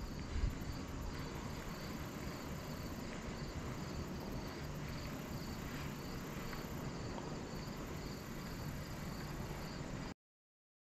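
Crickets chirping in an even rhythm, about two chirps a second, over a low steady outdoor rumble; the sound cuts off suddenly near the end.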